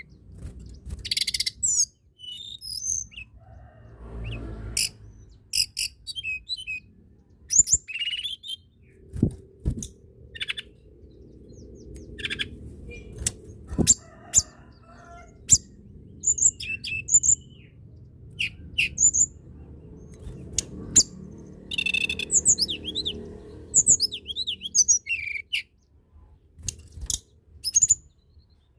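Tledekan gunung songbird singing: a long run of short, high, sharp chirps and quick trilled phrases with brief gaps between them, and a couple of knocks in the middle.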